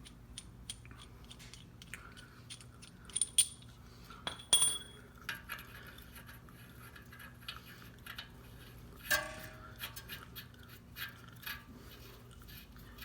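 Metal tools and parts being handled: scattered light clicks and a few sharp metallic clinks that ring briefly, about three seconds in, at four and a half seconds and again near nine seconds.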